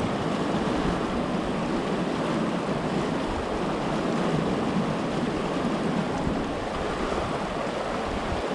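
Stream water rushing over rocks, a steady, even rush.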